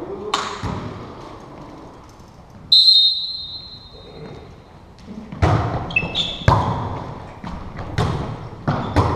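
Referee's whistle blown once, a steady high tone of about a second and a half, the loudest sound here; then a volleyball being served and played, a string of sharp slaps and thuds from hands and the ball echoing around a gymnasium.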